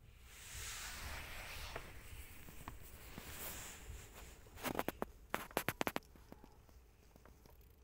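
A cat crunching dry kibble: a quick run of sharp crunches about five seconds in, after soft rustling.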